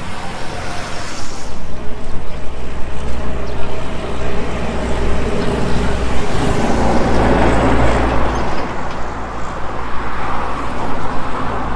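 A vehicle moving, heard as a steady low rumble with road and wind noise.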